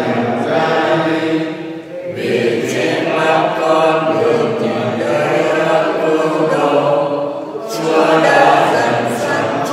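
Slow, chant-like singing of a church hymn in long held phrases, with short breaks between phrases about two seconds in and again near the end.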